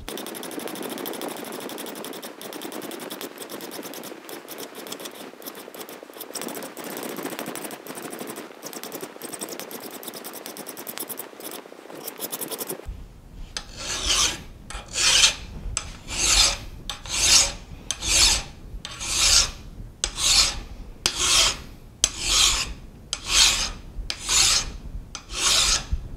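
A hand file rasping on a cast iron engine casting held in a vise, taking off leftover runner stubs. For about the first half it is a dense, continuous rasp. Then it turns to slow, separate push strokes, about one a second.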